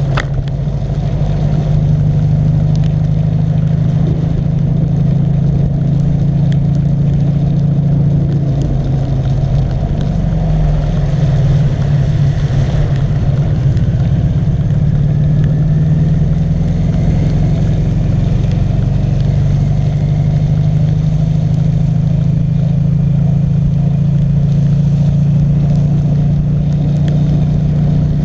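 Rewaco trike's engine running steadily under way, heard close up from the front of the trike, with a brief dip and change in the engine note about ten seconds in.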